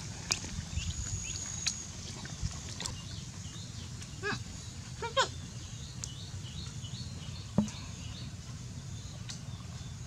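A dog chewing and eating fish scraps off leaves, with scattered sharp clicks of its eating, over a steady low rumble. Birds call in short chirping series about four and five seconds in, and a single knock sounds near the end.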